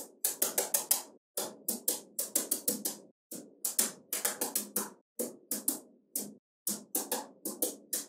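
Small magnetic balls clicking sharply as they snap together, in quick runs of several clicks a second broken by short silent gaps.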